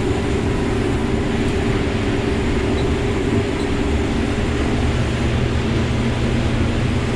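Combine harvester running steadily while shelling corn: an even engine and threshing drone with a low rumble and a few steady hum tones.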